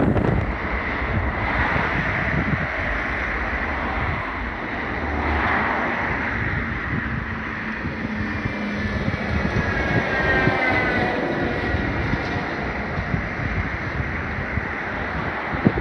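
Aircraft engine noise heard through strong wind buffeting the microphone, with a faint shifting whine in the middle as the aircraft passes.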